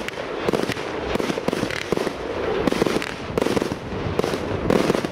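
Consumer firework cakes (Great Northern Fireworks 'Extreme', a mine-to-burst style) firing in quick succession: a steady stream of shots and bursts, about two to three a second, with a continuous crackling hiss between them.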